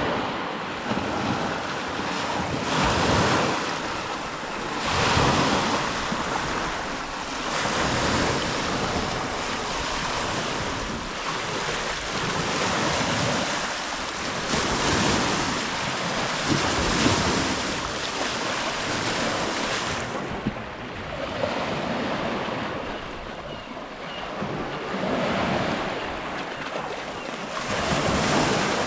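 Lake waves washing in, a rushing of water that swells and falls back every few seconds, with wind buffeting the microphone.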